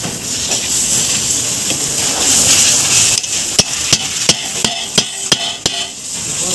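Sharp metallic clicks, about three a second, starting about three seconds in, as a wrench is worked on the bolts of a car's front brake caliper. A steady hiss fills the first half.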